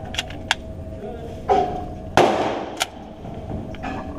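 A single gunshot about two seconds in, with a long echoing decay, amid smaller clicks and knocks of handling.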